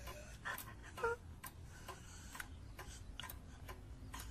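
A clock ticking quietly and steadily, about two ticks a second.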